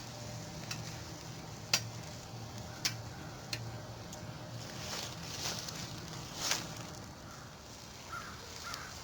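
Venison sausages sizzling faintly on a grill over campfire coals, with a few sharp pops and crackles in the first few seconds and softer hissing swells later on.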